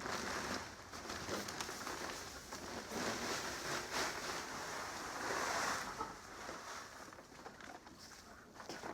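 Wood chippings being poured and spread on a floor: a dry rustling hiss with many small ticks, which swells about five seconds in and then thins out.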